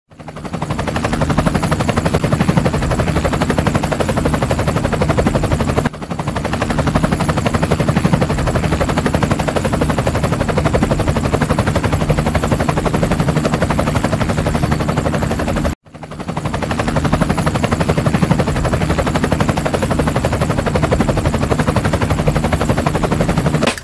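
Rapid, steady chopping of a helicopter rotor sound, loud throughout, dipping briefly about six seconds in and cutting out for an instant near sixteen seconds.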